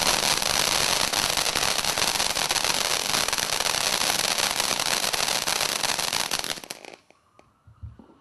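Fantasyland Fountain ground fountain firework spraying sparks: a loud, dense hiss of rapid crackling that dies away about seven seconds in.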